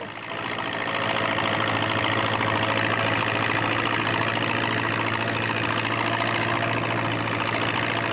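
Ford farm tractor's engine running steadily, an even drone with a constant low hum.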